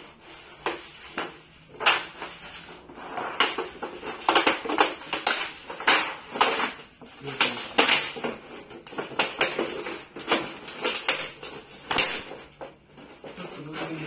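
Thin metal sheet of a roll-up camp-stove pipe being flexed and worked by hand: an irregular run of clatter, crinkling and scraping, busiest through the middle.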